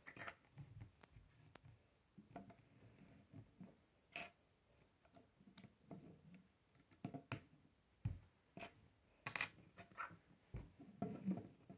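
K'nex plastic rods and connectors being handled and snapped together: irregular sharp plastic clicks a second or two apart, with faint rattling of loose pieces between them.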